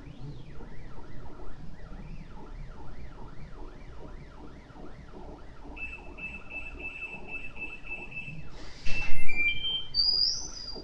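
Prusa i3 3D printer's stepper motors whining as the print head moves back and forth, each move a rising-then-falling pitch, two or three a second. Past the middle a steady high electronic beeping joins in. Near the end comes a loud knock, followed by a few short beeps at different pitches.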